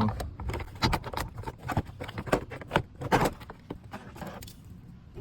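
Plastic trim piece being worked loose and pulled off by hand: a run of sharp plastic clicks, knocks and rattles, with a louder scraping rustle about three seconds in.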